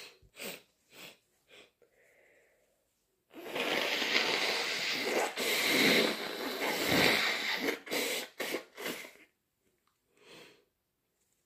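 A person sneezing from an allergy: a few short sniffs, then a loud, noisy stretch of sneezing and heavy breathing lasting about four seconds, followed by several quick sniffs.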